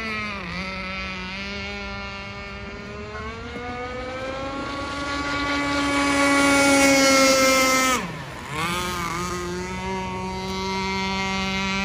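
Gasoline-engined RC speed boat running at speed on the water. It grows louder over several seconds, and the engine note drops sharply and climbs back twice: just after the start and at about eight seconds.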